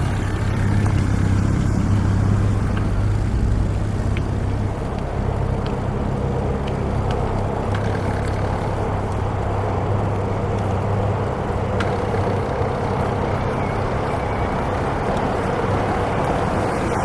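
Street traffic, with a motor vehicle's engine running steadily close by as a low, even hum.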